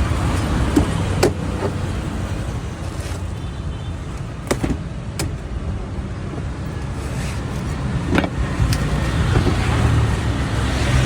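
Sharp knocks of a blade chopping into a fresh coconut, about five strikes, two in quick succession near the middle and two more later, over a steady rumble of street traffic.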